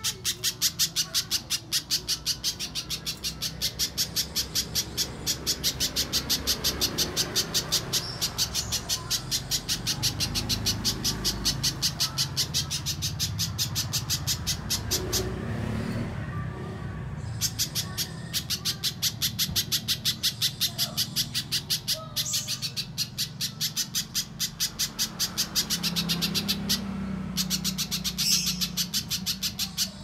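Little spiderhunter (pijantung pisang) calling in a long run of rapid, sharp chip notes, about four a second, broken by a couple of short pauses partway through.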